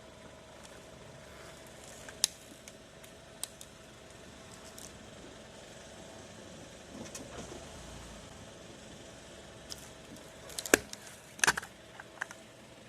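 Plastic and glass cracking and snapping as a car tyre crushes an electronic gadget. A few scattered sharp cracks come first, then a quick cluster of louder ones near the end.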